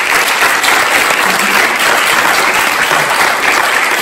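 An audience applauding: many hands clapping in a loud, steady round of applause.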